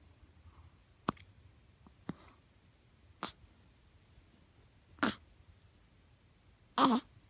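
Five tiny hiccups, each a short sharp hic, coming every one to two seconds. The last one is the loudest and a little drawn out.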